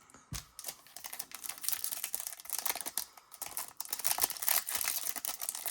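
Trading cards being handled and flipped through: a quick, irregular run of light clicks and slides as the cards rub against each other.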